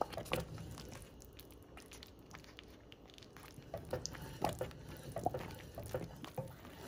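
Wooden spoon stirring thick, sticky wheat-and-ghee halwa in an enamelled cast-iron pot: soft, irregular short sounds of the spoon working and scraping through the mass, sparse at first and more frequent from about halfway. The halwa is near done, coming away from the pan as it is stirred.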